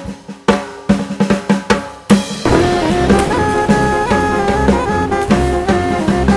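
Background music: a drum-kit fill, then a swing-style jazz band comes in about two seconds in.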